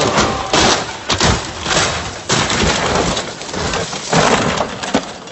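Hyundai rally car rolling over on a gravel stage: a run of loud crashing impacts, each with a spray of gravel and dirt, several hard hits over a few seconds.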